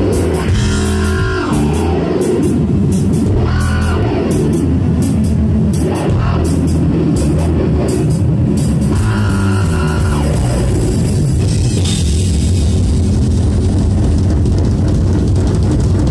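A live rock band's noisy outro. Distorted electric guitar is run through effects pedals, making swooping, wavering pitch sweeps several times, over a steady wash of drums and cymbal crashes that thin out in the last few seconds.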